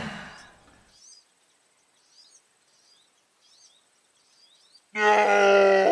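Faint, short high chirps of a small bird repeating every second or so. About five seconds in, a loud, steady pitched tone starts.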